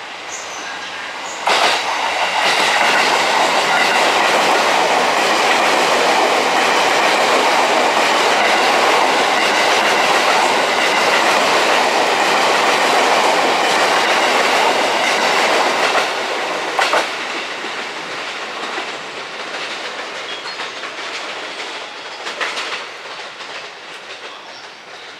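E257 series electric express train running past on the rails, its wheels clattering over the rail joints. The noise jumps up about a second and a half in, holds steady, then eases after about sixteen seconds and fades, with a couple of sharp clicks as it goes.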